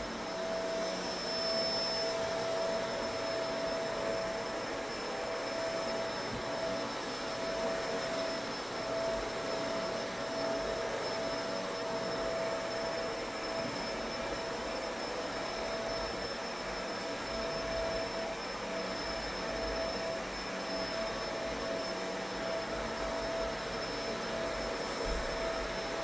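Upright vacuum cleaner running steadily while being pushed over a rug, with a constant motor whine and a fainter high whistle above it.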